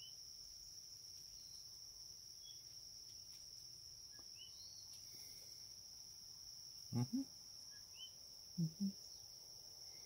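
A steady, high, faint chorus of crickets or other insects, with a few short high chirps scattered through it. About seven seconds in and again near nine, a man gives two short low hums like "mm-hmm".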